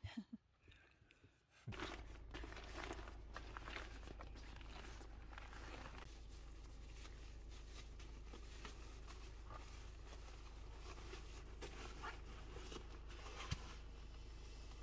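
Electric air pump running steadily as it inflates a nylon air mattress, a constant hum that switches on about two seconds in, with crinkling of the mattress fabric and a single sharp click near the end.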